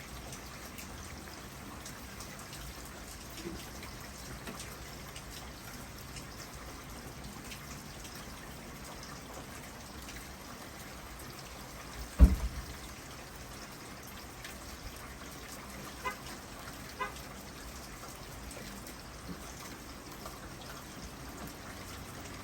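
Steady rain falling, with water trickling and dripping. A single loud low thump about twelve seconds in, and two faint clicks a few seconds later.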